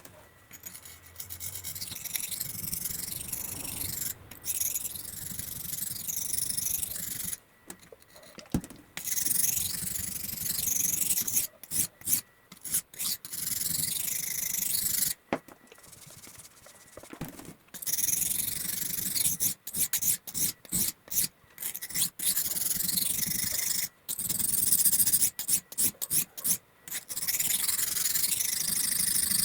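Hand-worked abrasive rubbing strokes, in stretches of several seconds and runs of short quick strokes, broken by brief pauses.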